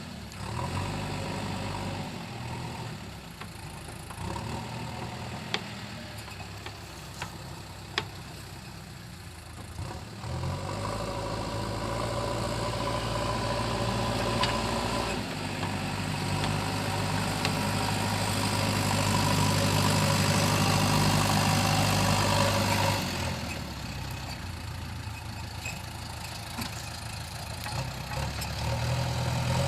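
JCB 3DX backhoe loader's diesel engine running, near idle at first, then revving up about ten seconds in and working hard under load. It drops back to idle for a few seconds and rises again near the end. A couple of sharp clicks or knocks come early on.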